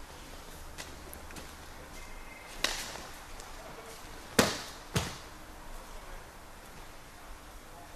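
Three sharp slaps of a body and hands striking a gym mat as a partner is thrown down during a martial-arts takedown: one about two and a half seconds in, then two louder ones close together a little after four seconds and at five seconds.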